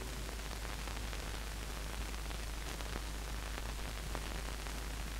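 Steady hiss with a low hum underneath and a few faint ticks: the background noise of an old film soundtrack, with no music or dialogue playing.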